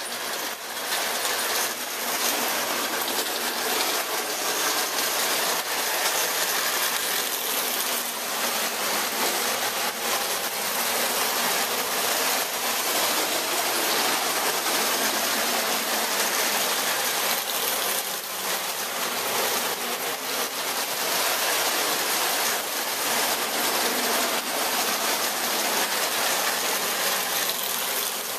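Three-rail O-gauge toy electric trains running on tinplate track: a steady dense rattle and clatter of metal wheels on the rails with motor whir, rising as the trains get under way in the first second, then holding steady.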